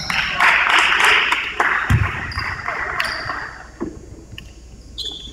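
A basketball bouncing on a hardwood gym floor, with a dull thud about two seconds in and another near four seconds. A rush of noise covers the first three seconds.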